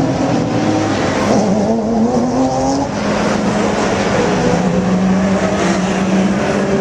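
Sports-prototype and GT race car engines running hard on track, several at once, their pitches rising as they accelerate, with a break in pitch about three seconds in.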